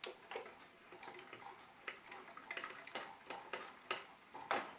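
Rubber-powered multi-prop drive of a balsa model Lancaster bomber running: its red propellers spin off a belt-and-pulley system, with irregular light clicking and ticking that gets busier about halfway through.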